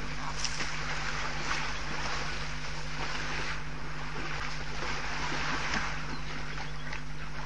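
Steady outdoor rushing hiss, like wind on the microphone, over a constant low electrical hum, with a few faint scattered clicks; no elephant calls stand out.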